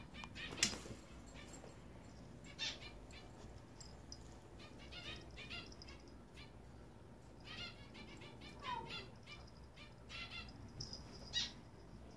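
Cats at play: faint scuffles, skitters and taps of paws and a small toy on the floor, coming in short bursts with sharper clicks near the start and near the end.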